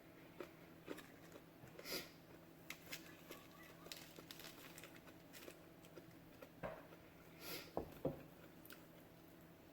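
Faint close-up eating sounds: soft chewing, wet mouth clicks and lip smacks in scattered short bursts, with a steady low hum underneath.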